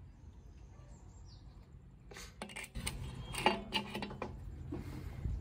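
Light metallic clinks and rattles from a hand-held amplifier board and its finned aluminium heatsinks being turned over, starting about two seconds in.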